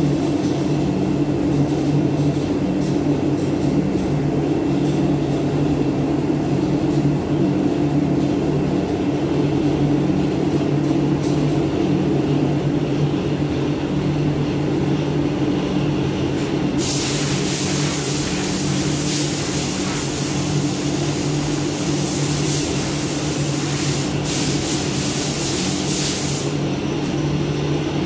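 Steady machinery hum with several fixed low pitches, joined about two thirds of the way through by a loud hiss that stops shortly before the end.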